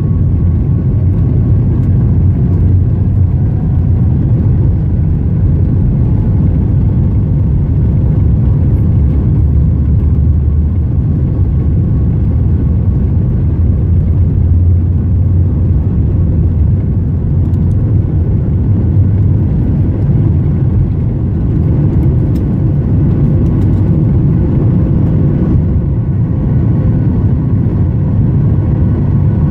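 Boeing 737 MAX 8 airliner with CFM LEAP-1B turbofan engines at takeoff power: a steady, loud low rumble with faint steady whining tones above it.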